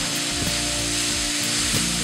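Chopped onions and peppers frying in oil and butter in a pan, a steady sizzle as they are stirred with a spatula, under background music.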